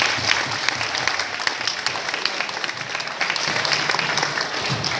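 Audience of schoolchildren and adults applauding, many hands clapping at once, easing off slightly near the end.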